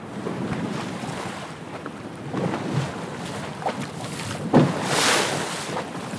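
Ocean waves and wind that start abruptly and surge louder in swells, the biggest about five seconds in. A short sharp knock comes just before that swell.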